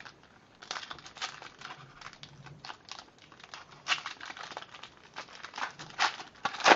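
Foil trading-card pack wrapper crinkling and rustling as it is worked and torn open by hand, with a few sharper crackles toward the end.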